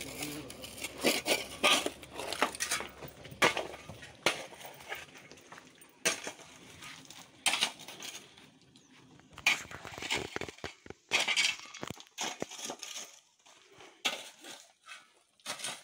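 Scattered light clinks and crunching knocks, coming irregularly with short gaps between them.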